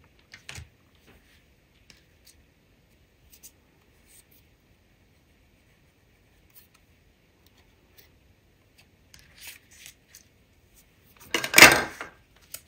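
Cardstock being handled on a tabletop: faint scattered ticks and rustles of paper, then a louder rustle lasting about a second near the end as the black die-cut cardstock frame is laid down and pressed flat.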